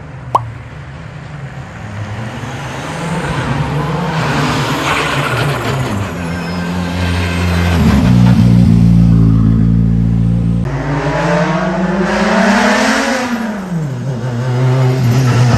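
Turbocharged rally car engine running and revving, its pitch held steady for a moment, then climbing and falling, and climbing again near the end. A single sharp bang sounds right at the start.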